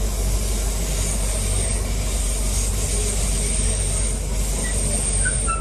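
Class 323 electric multiple unit heard from inside the passenger saloon: a steady low rumble and hum of the train, with a faint high whine above it that grows a little stronger near the end.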